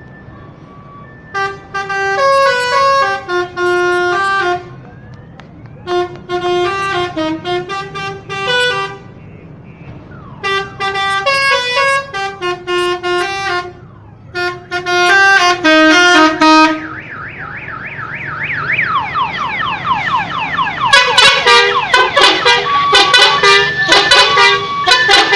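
Hasyim Asyari bus's telolet horn, a multi-tone musical bus horn, playing short melodic phrases of a few seconds each with brief pauses between them. About 17 s in it switches to a siren-like rising and falling wail, then plays a faster run of notes near the end. A low steady rumble runs underneath.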